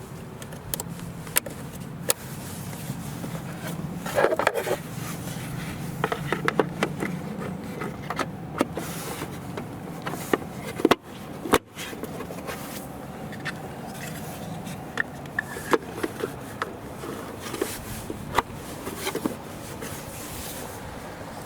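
Hard plastic fuse box covers in a car's engine bay being handled, slid back on and snapped into place: plastic scraping and rubbing, with scattered sharp clicks and knocks over a steady low hum.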